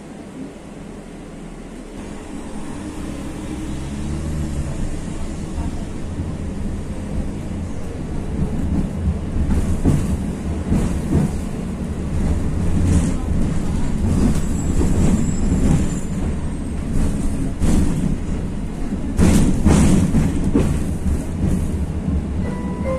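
A 71-623-02 (KTM-23) tram heard from inside as it pulls away: its traction drive whines rising in pitch for a few seconds while the running rumble builds. The wheels then rumble and clack over rail joints and points, with the loudest clacks a little before the end.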